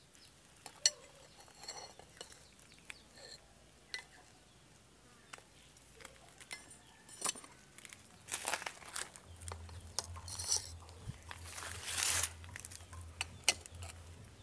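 Steel throwing knives clinking against one another and the stone as they are handled and picked up with tongs, amid scattered small clicks. A low steady hum joins about nine seconds in.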